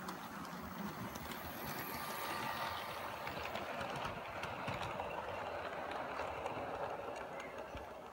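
Bachmann OO gauge Class 47 model locomotive and its Mk1 and Mk2 coaches running past on model track. Wheels click and rattle over the rail joints alongside the motor's whir. It grows louder as the train comes close and fades near the end.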